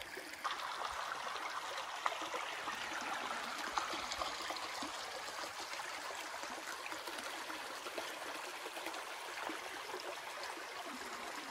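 Shallow creek water running and trickling over bedrock, a steady rushing hiss, with a couple of faint clicks about two and four seconds in.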